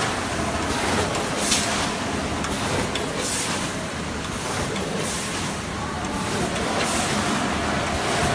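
Gelgoog multihead weigher packing machine running: a steady mechanical din with short hisses of air recurring about every two seconds, in time with the bagging cycle.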